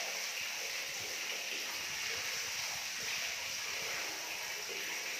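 Footsteps and rustling through dry leaves and undergrowth, irregular and uneven, over a steady high hiss of outdoor background.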